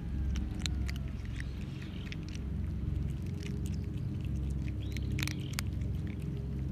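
Several cats crunching dry kibble: irregular crisp clicks of chewing, over a low steady background rumble.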